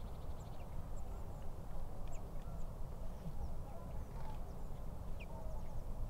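Outdoor woodland ambience: a steady low wind rumble with faint, scattered high bird chirps and a few distant bird calls.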